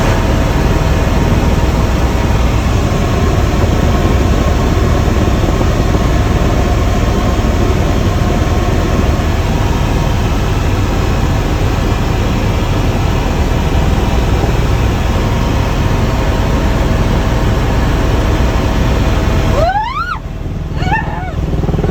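Helicopter running in flight, heard from inside the cabin as a loud, steady mix of rotor and engine noise with a faint steady whine. It cuts off suddenly near the end, followed by a few short rising tones.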